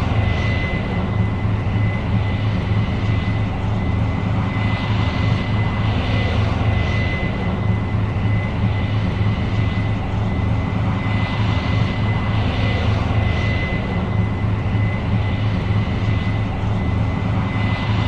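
Case IH 8230 Axial-Flow combine running steadily: a deep, even engine drone with a thin steady whine above it, and a hiss that swells and fades every few seconds.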